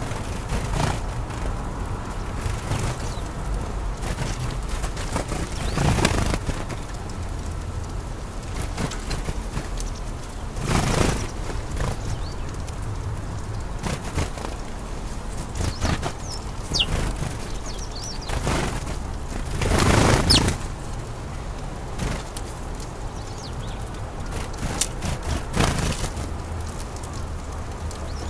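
Field recording of birds: a few faint, thin high chirps over a steady low rumble, broken by about five loud whooshing sweeps spread through the stretch.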